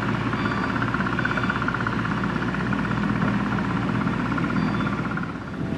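Komatsu excavator's diesel engine running steadily, with a fast even pulsing and a low hum.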